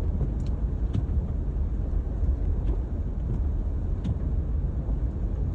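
Steady low rumble of road and engine noise inside a small four-wheel-drive car's cabin while driving on a snowy road, with a few faint ticks.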